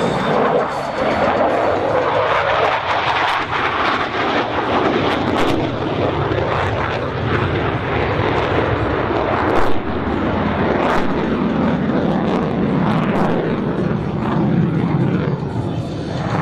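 Polish Air Force MiG-29A's twin Klimov RD-33 turbofan jet engines during a flying display: loud, continuous jet noise that holds steady throughout.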